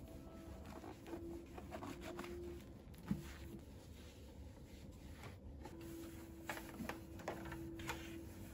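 Quiet household handling sounds during room cleaning: soft rubbing and light clicks, with a sharp knock about three seconds in. A steady low tone comes and goes.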